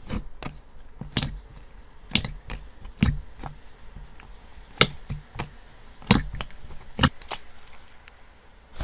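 Slime being handled and squished, giving irregular sharp clicks and pops, about one or two a second.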